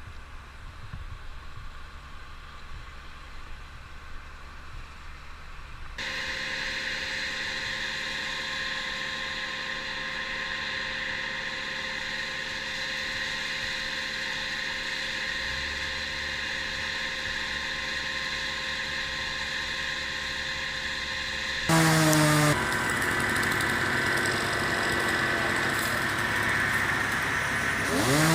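Engine running steadily, in three abruptly cut sections: a faint low rumble, then a steady drone from about six seconds in, then a louder engine from about twenty-two seconds in whose pitch shifts near the end.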